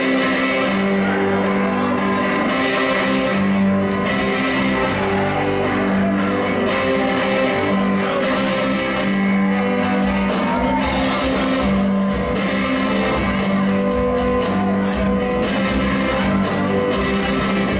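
Live blues-rock band playing: electric and acoustic guitars, bass and a drum kit, with regular drum and cymbal hits.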